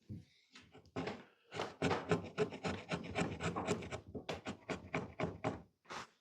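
Rapid scraping strokes of a hand tool on wood, about five a second, starting about a second and a half in and stopping just before the end.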